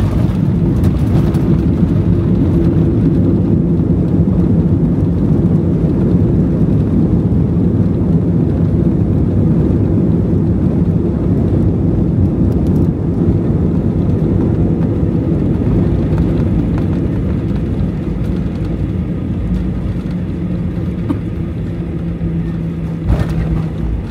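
Boeing 737 engine and airflow noise heard from inside the passenger cabin around landing: a loud, steady rumble with low hums that slowly eases off, with one short knock near the end.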